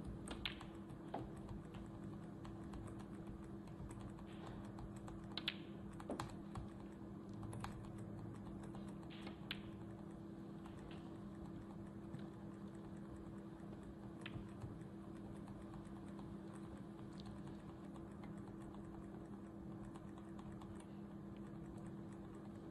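Scattered sharp clicks, some in pairs about half a second apart, thinning out after the first ten seconds, over a steady low electrical hum.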